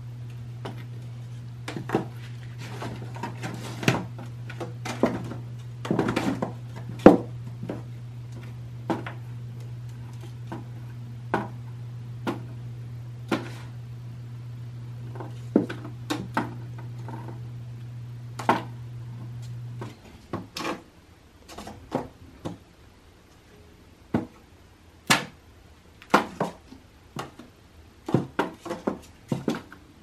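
Irregular light taps and knocks of a cat batting at a dangling mouse toy in and against a cardboard cat house, the loudest knock about seven seconds in. A steady low hum runs underneath and cuts off about two-thirds of the way through.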